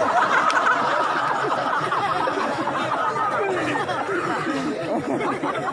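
Audience laughing together, a continuous wash of many voices laughing at once that carries on through the whole stretch.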